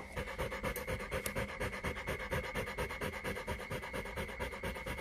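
Rottweiler bitch panting rapidly and evenly, several quick breaths a second, as a dog does in labour while whelping.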